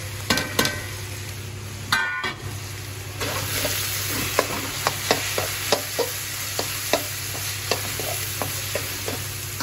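Spiced vegetables sizzling in a metal wok while a slotted spatula stirs and scrapes them, with frequent sharp taps of the spatula on the pan. A few ringing metal clinks come in the first two seconds as the steel spice plate meets the wok, and the sizzle grows louder about three seconds in.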